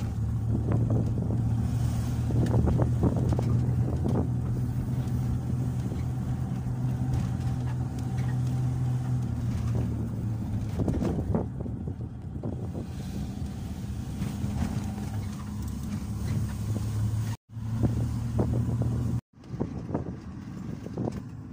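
Engine and road noise of a moving car heard from inside the cabin: a steady low hum. Near the end the sound cuts out completely for an instant, twice.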